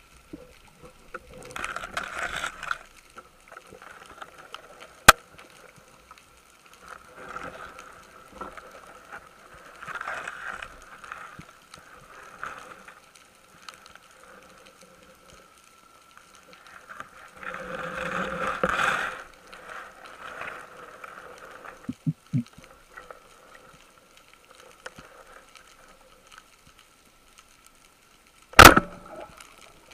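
Muffled underwater rustling and scraping in bursts as a diver moves through Posidonia seagrass. Near the end, a single loud sharp crack: a Salvimar Predathor Vuoto 115 speargun firing its shaft.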